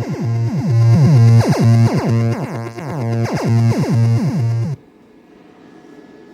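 Synthesizer electronic music played through a Sony SS-XB88V super woofer speaker: a steady deep bass note under repeated falling synth sweeps, a few a second. It cuts off abruptly about three-quarters of the way through, leaving faint room noise.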